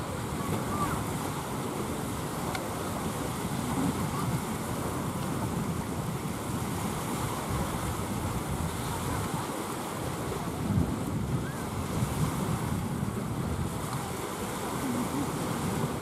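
Small waves washing steadily onto a sandy shore, with wind on the microphone.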